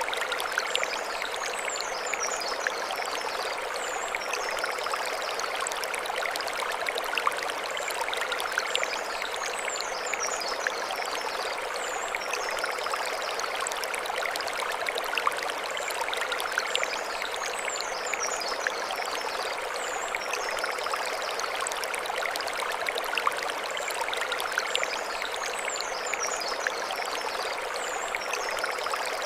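Mountain stream flowing over stones, a steady rush and splash of water. A short high chirping pattern recurs about every eight seconds.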